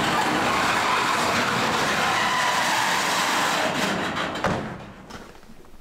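Steady loud rushing noise of travel on a moving vehicle. It starts abruptly and cuts off about four and a half seconds in.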